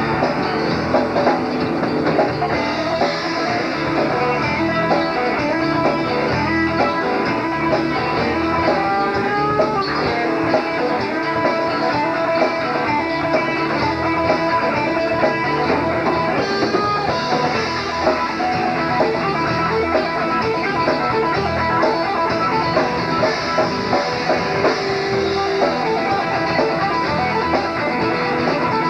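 Southern rock band playing a song: electric guitars over bass and a drum kit, the mix loud and steady throughout.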